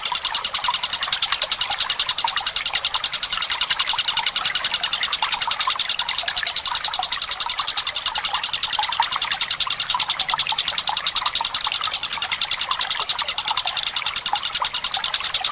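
Tengkek Buto kingfisher giving a continuous, very rapid chattering rattle, mixed with trickling water.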